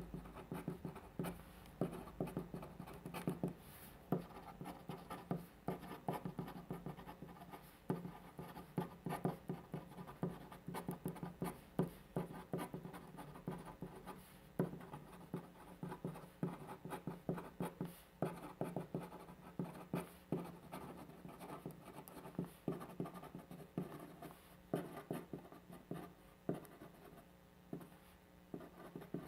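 Pen writing on paper: a steady run of short, irregular scratching strokes and light taps as characters are written by hand.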